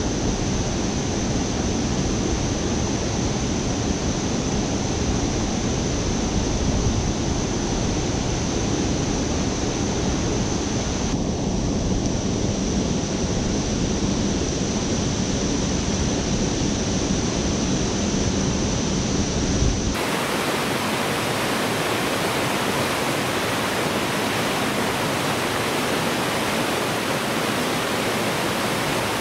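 Steady rush of falling and flowing water from a creek's cascades pouring into a rock pool. About twenty seconds in the sound changes abruptly, losing its low rumble and becoming a brighter hiss.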